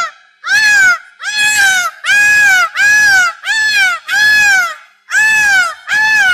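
An animal calling over and over: about eight short, whiny calls in quick succession, each arching up and then down in pitch.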